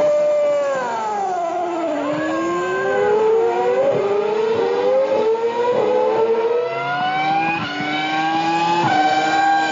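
Formula 1 car engine, dubbed over the pictures. Its pitch falls over the first two seconds, then climbs again in a long rise broken by two quick shifts near the end.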